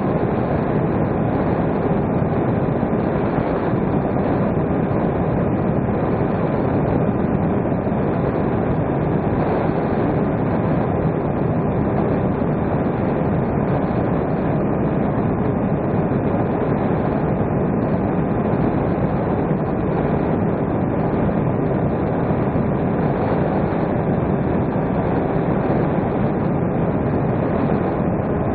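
Electric motor and propeller of a battery-powered RC model plane running steadily in flight, heard from its onboard camera as a constant rush of airflow and propeller noise with a faint steady whine.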